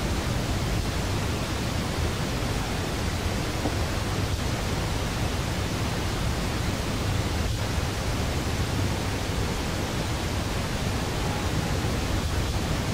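Steady, even outdoor background noise with no distinct source standing out, and two faint ticks about four and seven and a half seconds in.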